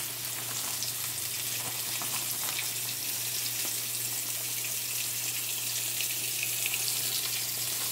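Battered catfish pieces frying in hot grease in a cast-iron skillet: a steady, dense sizzle and crackle.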